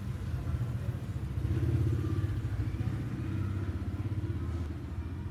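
An engine running, a steady low rumble that swells about two seconds in and then eases off a little.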